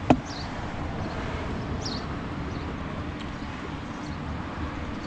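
One sharp click right at the start, then steady outdoor background noise with a faint high chirp about two seconds in.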